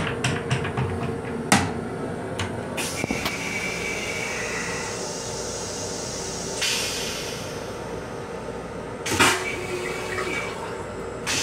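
Metro-North M7 railcar toilet flushing. A few clicks and a sharp clunk about a second and a half in are followed by a whine and rushing water as the stainless bowl is rinsed and emptied, then another clunk with a brief whine about nine seconds in. The train's steady running hum lies underneath.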